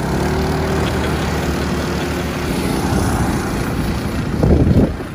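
Go-kart engine running steadily, then revving up briefly near the end.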